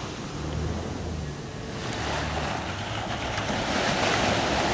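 Sea waves washing, with wind buffeting the microphone; the rush swells louder about halfway through.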